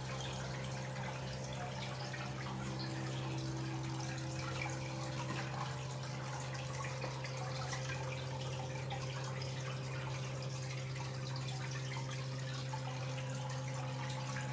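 Water dripping and trickling over a steady low hum.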